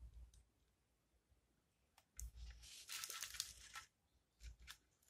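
Faint handling noise: a rustle lasting about a second and a half, from about two seconds in, with a few soft low bumps, as hands move wires and a circuit board on a workbench.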